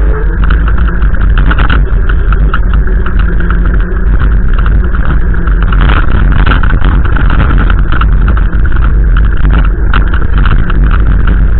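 Strong wind buffeting the microphone: a loud, steady rumbling roar.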